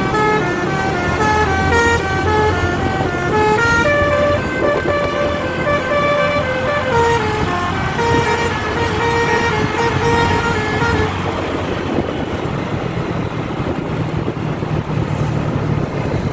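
Bus 'telolet' basuri horn, an electric multi-tone musical horn, playing a quick tune of stepped notes over the bus's engine running. About eleven seconds in the horn stops and only the engine's low rumble goes on.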